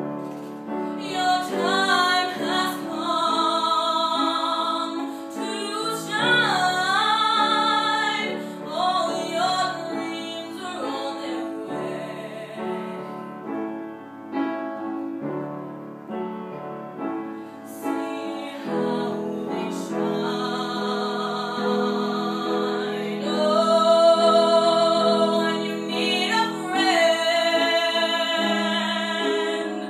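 A woman singing live with wide vibrato on long held notes, over a quieter accompaniment that is probably piano. Partway through, her voice drops back for a few seconds, then returns fuller and louder.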